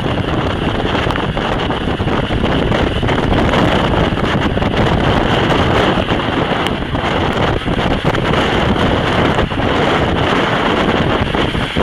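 Strong wind buffeting the microphone: a loud, steady rushing that swells and dips in gusts.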